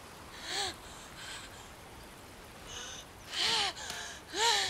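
Short grunts and gasping cries of exertion from people fighting: a brief one under a second in, then two louder ones a little past three and four seconds in.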